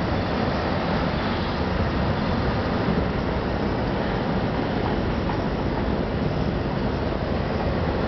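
Steady, continuous city street traffic noise with a heavy low rumble and no distinct events.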